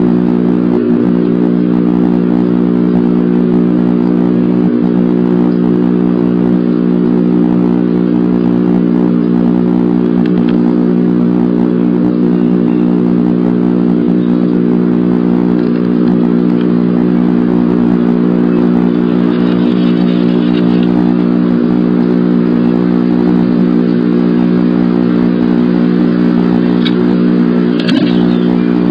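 Steady electrical hum with evenly spaced overtones that never changes in pitch or level, picked up by the nest-box camera's audio. A few light taps and scratches sound over it, most of them near the end.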